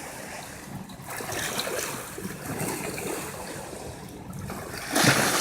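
Small lake waves lapping and washing over rocks in soft, uneven swells, with a louder wash breaking near the end.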